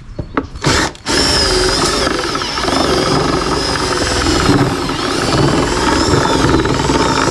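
Cordless drill run in a couple of short blips, then held running continuously from about a second in, its pitch wavering as the bit is worked around to elongate a hole in the car's bodywork.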